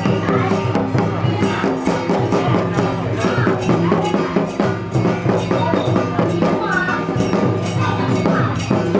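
Traditional Taiwanese temple ritual percussion: drums with clanging metal percussion, playing a fast, steady beat of several strikes a second.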